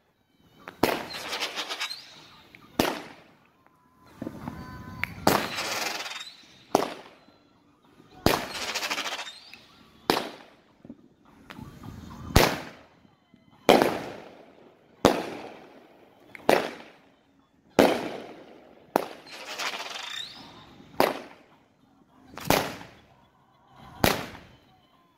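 A Brothers 'Hillbilly Armor' 22-shot firework cake firing shot after shot, a sharp bang about every one and a half seconds. Several of the bursts trail off in a longer crackle.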